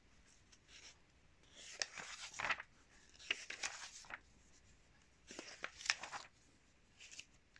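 Pages of a glossy magazine being turned by hand: three papery rustles, the first about two seconds in, then about a second and a half and two seconds apart.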